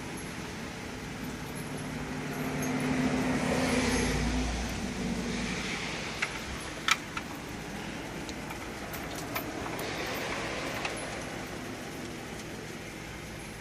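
A vehicle's engine running with road traffic behind it, swelling to its loudest a few seconds in, then a few sharp metallic clinks of tire chain links being handled and fastened on a tyre.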